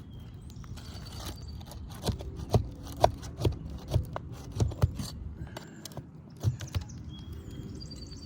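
A hand tool working under asphalt roof shingles to pull overdriven nails: a quick run of sharp knocks and clicks starting about two seconds in, easing off about a second before the end.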